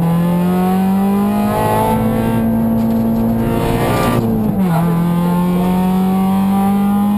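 Honda Civic VTi rally car's four-cylinder engine running hard under acceleration, heard from inside the cabin. The revs climb, dip briefly about a second and a half in, fall more sharply around four seconds in, then climb again.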